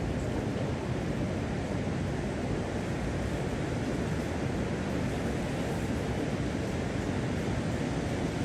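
Ocean surf rushing steadily on a beach, mixed with wind blowing on the microphone.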